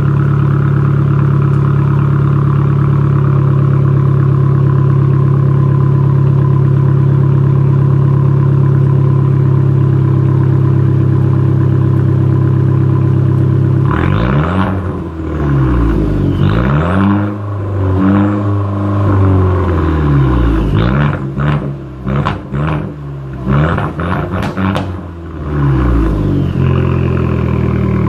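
A 2014 Fiat 500L's 1.4-litre turbocharged four-cylinder runs through a straight-piped exhaust with the muffler and resonator removed. It idles steadily at first. About halfway through, the throttle is blipped in a series of quick revs that each rise and fall, and the engine settles back to idle near the end.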